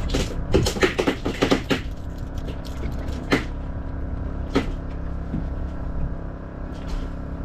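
A steady engine hum, with a quick run of sharp clicks and knocks over the first two seconds and two more single knocks a little later.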